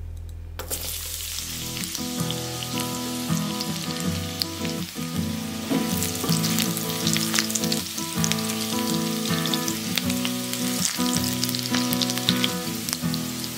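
Chopped garlic hitting hot oil and butter in a nonstick wok and sizzling, the sizzle starting just under a second in and crackling on, while a spatula scrapes and taps the pan as it stirs.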